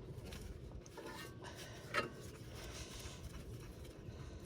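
Faint metal clinks and rubbing of a wrench on a brake caliper bolt as it is fitted and turned, with one sharper click about two seconds in.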